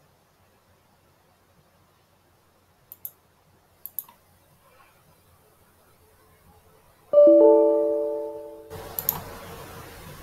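Computer mouse clicking, a quick double click about 3 s in and another about 4 s in, then a loud two-note electronic alert chime about 7 s in that rings out for over a second. A steady hiss follows, with two more quick clicks near the end.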